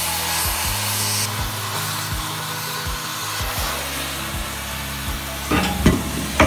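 Gas cutting torch hissing as it cuts through the steel plate of a bucket, over background music with a steady beat; a couple of metal knocks near the end.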